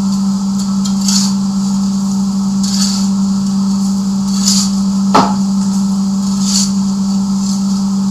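Coal forge fire being worked with a steel poker: scraping and crunching of coal every second or two over a steady low hum, with one sharp metal clank about five seconds in.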